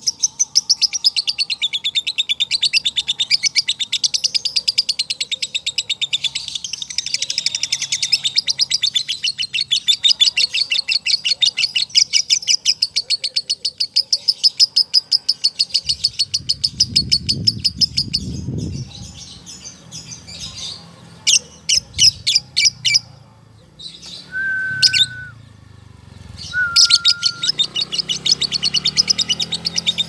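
Male lovebird chattering: a long run of rapid, sharp chirps, the prized song lovebird keepers call ngekek. About sixteen seconds in the run breaks off, with a low rumble and then a few scattered chirps and two short whistled notes, and the rapid chattering starts again near the end.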